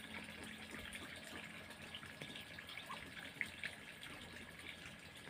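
Muscovy ducklings peeping, short high calls scattered irregularly throughout, over a faint steady hiss.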